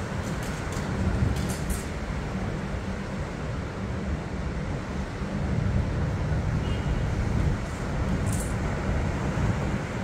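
Steady wind blowing on the microphone, a low, even rumble, with ocean surf washing onto a sandy shore behind it.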